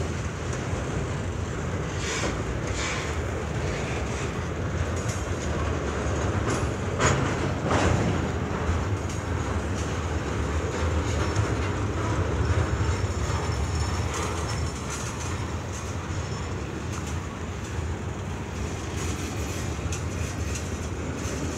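Double-stack intermodal freight train rolling past, its well cars giving a steady rumble with wheels clacking over rail joints. The sharpest clacks come about seven and eight seconds in.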